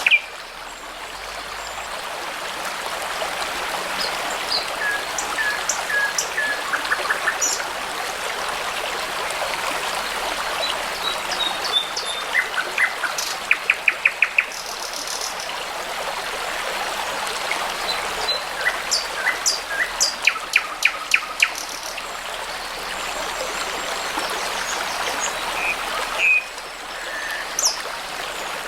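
A brook babbling steadily, with songbirds singing over it: scattered whistled notes and several quick trills of repeated notes, the loudest runs about halfway and two-thirds of the way through.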